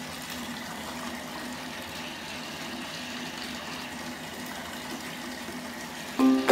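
A glitter bath bomb fizzing in bathwater: a steady watery hiss. Ukulele music comes in near the end.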